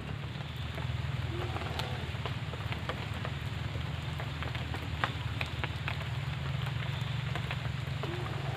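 Steady rain falling, an even hiss with scattered sharp drips and taps.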